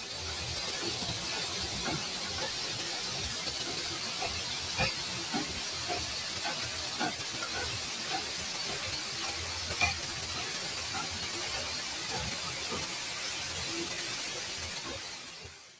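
Waterfall: a steady rush of falling water and spray, with faint scattered splashes. It fades out near the end.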